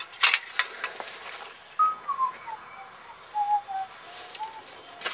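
A few light clicks and knocks in the first second, then a run of whistled notes that steps down in pitch and wavers for about three seconds.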